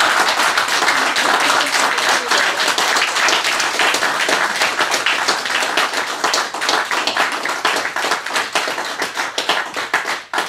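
A small audience applauding. The clapping is dense at first and thins into sparser, separate claps toward the end.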